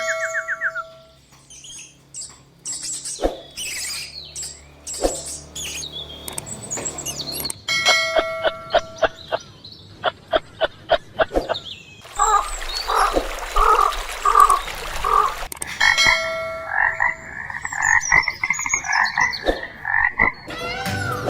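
A run of different animal calls that switch abruptly every few seconds: short chirps, then a regular train of short pulsed calls, then repeated pitched calls.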